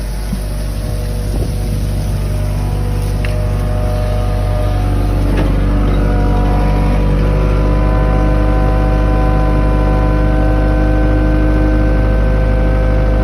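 Motorboat engine running steadily, growing louder over the first few seconds and then holding, with a few faint knocks.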